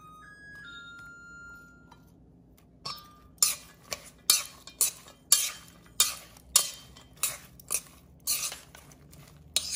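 Metal tongs clinking and scraping against a stainless steel mixing bowl as a salad is tossed, sharp clinks about twice a second starting about three seconds in.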